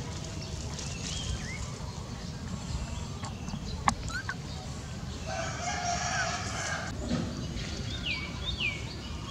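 A rooster crowing once, held for over a second, about midway, over a steady low rumble. A sharp click comes just before it, and two short high calls falling in pitch come near the end.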